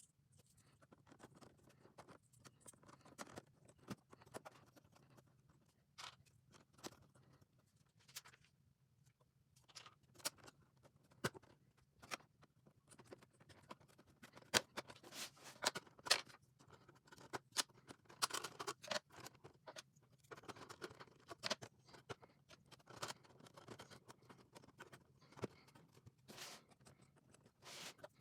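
LEGO bricks being handled and pressed together: irregular small clicks and light rattling, over a faint low hum.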